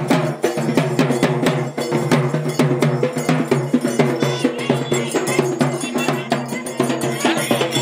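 Dappu frame drums beaten with sticks in a fast, continuous rhythm of sharp strikes, with a held pitched tone and shifting melodic notes underneath.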